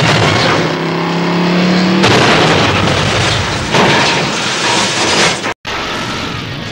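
Stunt car crash: a car engine drones as the car is launched into the air, then crashing and scraping metal as it comes down on its roof and slides, with a loud impact near the middle. After a sudden cut, the rumble of a large explosion.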